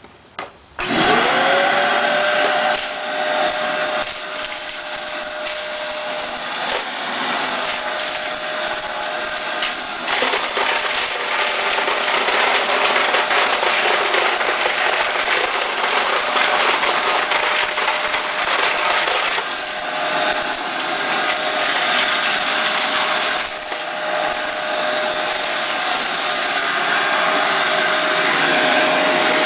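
Hoover vacuum cleaner switched on about a second in, its motor whine quickly rising to a steady pitch, then running steadily with a few shifts in loudness.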